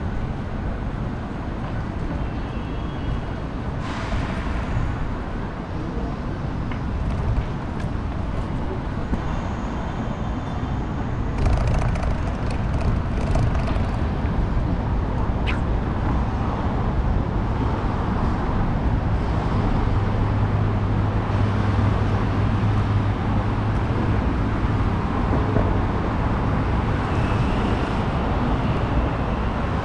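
Busy city road traffic: a steady rumble of cars and other vehicles passing, getting louder about a third of the way in, with a low engine hum standing out for a few seconds past the middle.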